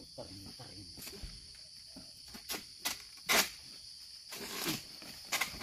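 Long-pole harvesting sickle cutting through oil palm frond stalks: several short sharp strokes, the loudest about three and a half seconds in, over a steady high insect drone.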